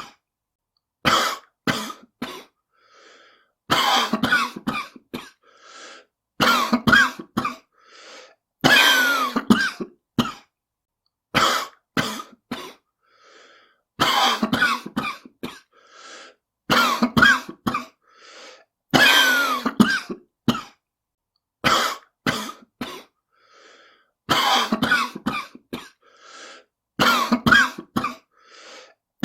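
A person coughing in repeated fits about every two and a half seconds. Each fit is one harsh, drawn-out cough followed by a few short sharp coughs, with a faint in-breath between fits. A smoker's cough.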